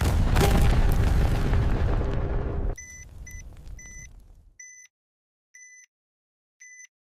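Sound-effect explosion: a sudden loud blast with a rumbling tail that drops off about three seconds in and dies away over the next second or two. Over the fading tail an electronic bomb-timer beep starts again, short high beeps about once a second.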